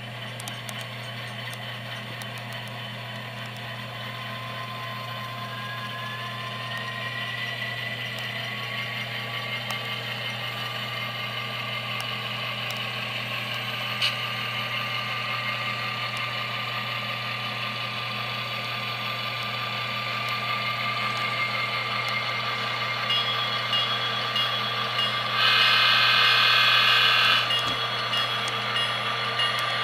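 Onboard sound decoders in two HO-scale model diesel locomotives, a GE C40-8W with a Tsunami decoder and an MTH SD70M-2, playing diesel prime-mover sounds as the pair runs. The sound grows slowly louder, with a rising whine about six seconds in. Near the end comes a loud horn blast of about two seconds.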